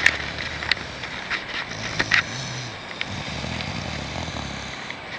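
A person snoring: a low drone in several long breaths with short gaps between them, and a few short clicks.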